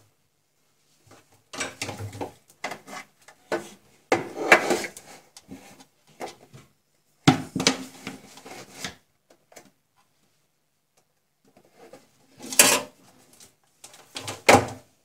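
Irregular bursts of knocking, scraping and rustling from hands fitting an LED strip and its wire under a kitchen cabinet, with sharper knocks against the cabinet about seven and twelve and a half seconds in.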